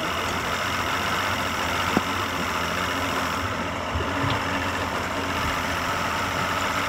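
Two-stroke outboard boat engine idling steadily after a rope start, with a couple of faint ticks.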